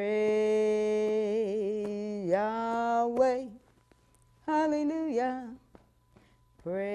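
A lone voice singing long, held, wordless notes with vibrato, unaccompanied. There are two phrases with a pause of about a second between them, and a third begins near the end.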